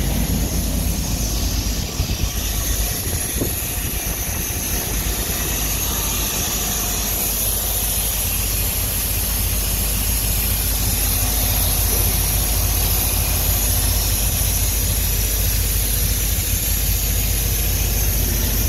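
Steady low rumble of vehicle engines and highway traffic, with a constant high hiss over it.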